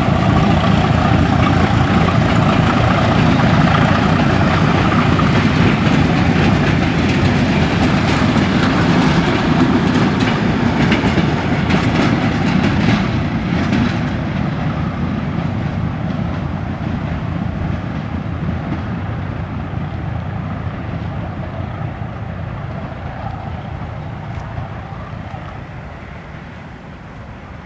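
The cars of a train hauled by the T 478.1008 'Bardotka' diesel locomotive rolling past, wheels clacking over rail joints. After about 13 seconds the rumble fades steadily as the train moves away.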